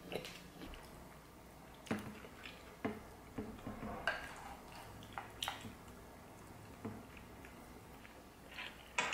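A spoon scraping and knocking against a glass bowl and a ceramic plate as chunky guacamole is scooped out and served: scattered light clinks and scrapes, about a second apart, starting about two seconds in.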